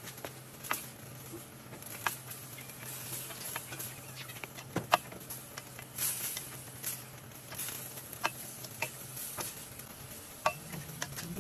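A spatula stirring and turning sliced cabbage, carrots and bean sprouts in a stainless steel wok, with many sharp clicks and scrapes against the pan over a soft sizzle. A steady low hum runs underneath and fades near the end.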